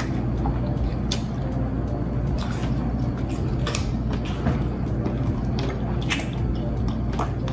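Close-miked wet, squishy eating sounds of sauce-laden food being dipped and bitten, with scattered sharp smacks and clicks over a steady low hum.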